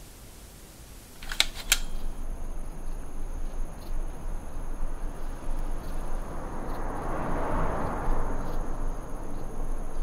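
Two sharp clicks about a third of a second apart, then steady outdoor ambient noise: an even hiss over a low rumble that swells toward the middle, with a faint steady high whine running through it.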